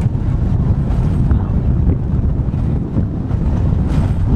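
Gusty wind buffeting the microphone over the low rumble of a Victorian Snaefell Mountain Railway electric tramcar running along the track, with a brief swish near the end as an overhead line pole passes close.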